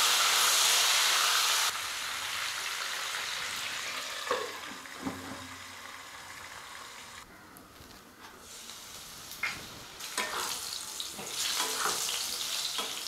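Small whole potatoes frying in mustard oil in a pan, a steady sizzle with occasional knocks and scrapes of a spatula against the pan. The sizzle is loud for about the first two seconds, then drops sharply and grows quieter under a glass lid in the middle, before picking up again with stirring near the end.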